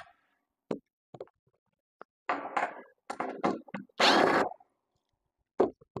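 Short bursts of a cordless drill backing screws out of a heat pump condenser's metal top, the loudest burst about four seconds in, with knocks and clicks from handling the screws and panel in between.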